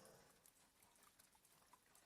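Near silence, with faint, irregular ticks of light rain tapping on a window.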